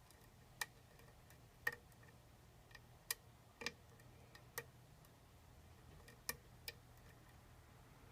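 A lock pick working the pins of a pin-tumbler challenge lock: about seven faint, sharp, irregular clicks as pins are lifted and snap back. These are clicks that bring no rotation of the plug.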